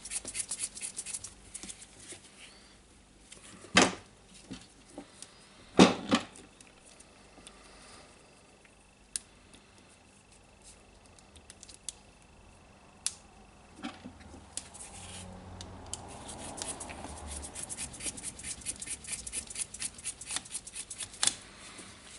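Small clicks, taps and scraping from hands working on the saw's plastic housing and switch parts while the switch is replaced. There are a few sharper knocks, about 4, 6, 13 and 21 seconds in, and runs of rapid small clicks near the start and again toward the end.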